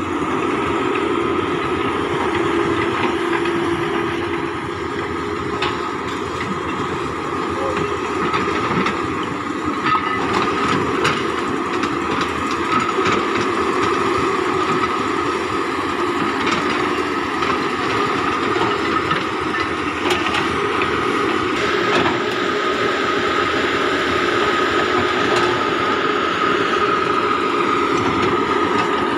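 Komatsu PC200 crawler excavator running close by: a steady engine and hydraulic drone with a high whine over it, and scattered clanks from the steel tracks and undercarriage.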